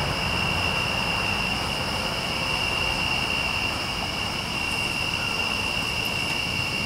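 Steady chorus of night insects, a continuous high trill with no breaks, over a low rumble of distant traffic.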